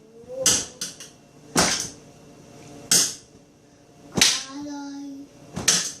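A small child slapping a refrigerator door like a drum: about five loud, sharp bangs roughly a second or so apart. A faint sung voice comes in near the end.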